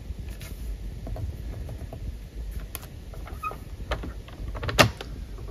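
Card stock being slid and pressed into place on a paper trimmer, with soft rubbing and scattered small clicks, then one sharp click near the end as the hand takes the trimmer's sliding cutting/scoring head.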